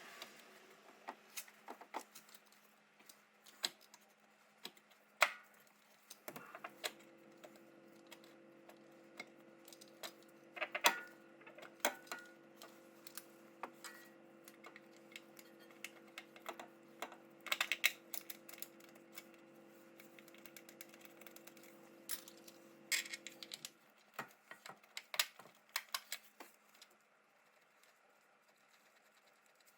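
Scattered light clicks and clinks of hand tools and metal parts during suspension work, with a steady hum from about six seconds in until about twenty-four seconds in.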